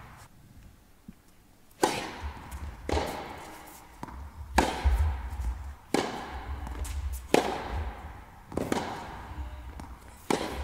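Tennis rally on an indoor hard court: sharp racket strikes on the ball and ball bounces, a crack about every second and a half from about two seconds in, each echoing in the hall.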